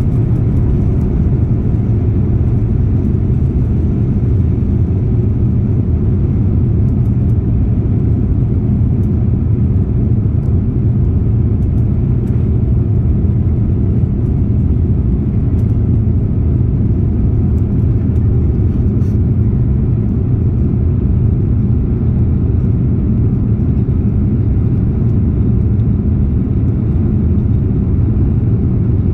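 Airbus A350-900's Rolls-Royce Trent XWB engines at takeoff thrust, heard inside the cabin as a steady, low rumble during liftoff and the initial climb.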